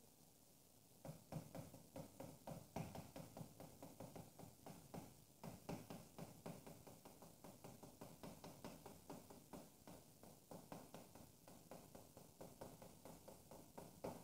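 Chalk writing on a blackboard: a fast, irregular run of faint taps and strokes as characters are written.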